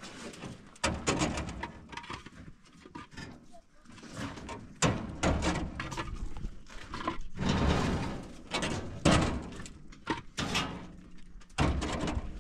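Hollow concrete blocks being passed down from a pickup bed and set onto a stack: irregular clunks and knocks of block on block and on the truck's metal side, with short scrapes as blocks are slid into place.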